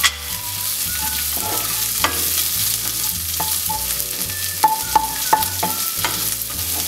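Chopped onions, ginger and garlic sizzling in hot oil in a nonstick pan while a spatula stirs them. Frequent sharp clicks and scrapes of the spatula against the pan sound over the steady hiss of the frying.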